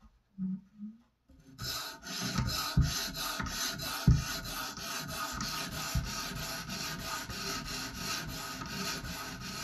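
Sharpening stone on an Edge Pro guided sharpener stroked back and forth along a knife edge: a steady rhythmic scraping of about three strokes a second, starting about a second and a half in, with a few low knocks.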